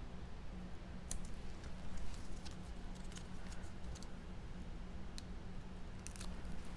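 Scattered soft clicks and taps of fingers handling cardstock pieces and foam tape, over a steady low hum.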